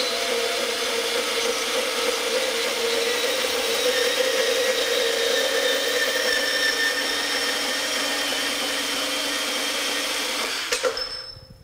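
Ridgid R8604B 18-volt compact band saw, a brushed-motor cordless model, cutting through a metal tube. Its blade runs and grinds steadily with a held hum, then stops near the end as the cut finishes.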